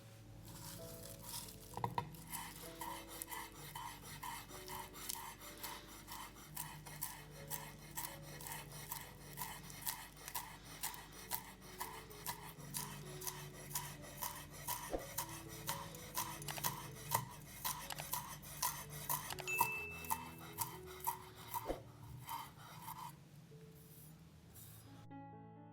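A kitchen utensil scraping against a dish in a steady rhythm, about two strokes a second, stopping near the end, over soft background music.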